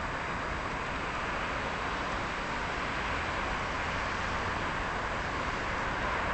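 Steady outdoor city din: a continuous, even rush with no distinct calls or single events standing out.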